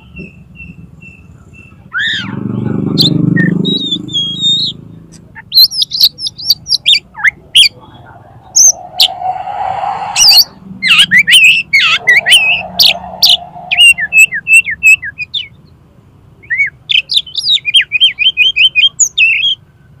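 Oriental magpie-robin (kacer) singing a fast, varied 'konslet' song of sweeping whistles and chirps, ending in a quick run of repeated notes. A loud rough noise comes about two seconds in.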